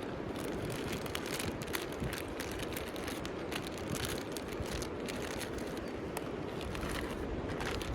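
Small wood fire in a compact grill fire stand crackling, with many sharp pops and snaps over a steady rushing background noise.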